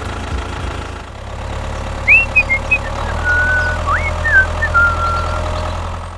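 Small electric motor of a DIY miniature tractor running steadily with a low hum. From about two seconds in, a few short, high, sliding chirps sound over it.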